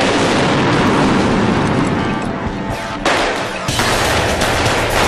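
Rapid automatic gunfire, dense and continuous, with a fresh louder burst breaking in about three seconds in, over background music.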